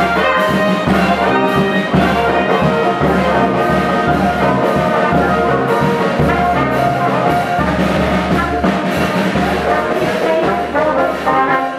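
A military band playing a Colombian tune live: sousaphones carrying a steady repeating bass line under trombones, trumpets, clarinets and saxophone, with cymbals and snare drum keeping the beat.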